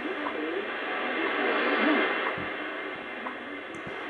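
Shortwave receiver tuned to 10 MHz playing the WWV and WWVH time signals: short second ticks about once a second under hiss and static, with a faint voice in the noise. The signal swells and fades with propagation.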